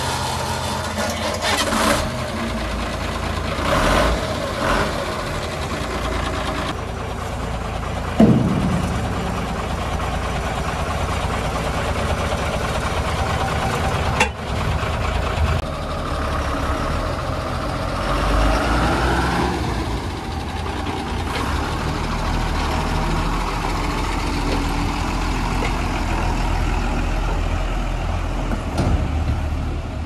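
Tata 2518 tipper truck's diesel engine running steadily, then picking up with a rising whine as the truck pulls away. About eight seconds in there is a loud sudden sound that drops quickly in pitch, and a sharp click comes a few seconds later.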